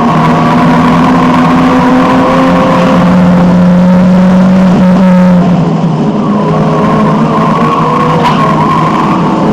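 Alfa Romeo 1750's twin-cam four-cylinder engine heard from inside the car, pulling hard at racing speed. It climbs to a higher note about three seconds in and holds it. The note drops with a brief dip in loudness about halfway through, as the driver lifts off, then picks up again near the end.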